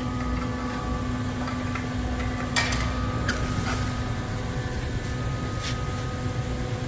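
Bystronic Xpert 320 CNC hydraulic press brake standing powered up, its hydraulic power unit giving a steady hum. A few light clicks and knocks come in the middle.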